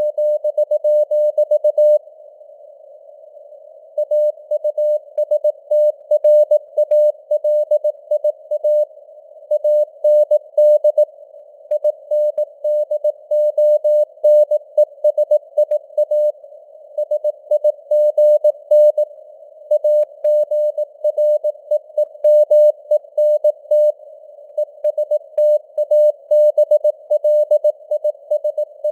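Morse code at 18 words per minute: a single mid-pitched sine tone keyed on and off in dots and dashes, over a hiss of simulated radio band noise, with the signal fading up and down (QSB). The keying stops for about two seconds early on, then carries on.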